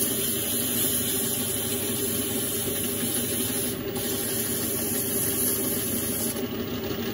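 Small metal lathe running steadily while a spinning turned bar is buffed by hand with an abrasive, a high hiss of abrasive rubbing on the metal, polishing out the tool marks. The hiss breaks off briefly about four seconds in and stops about a second before the end, leaving the lathe's hum.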